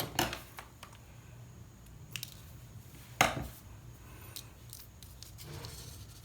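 Quiet handling sounds of string and a mount being worked by hand: a few short clicks and rustles, the loudest about three seconds in.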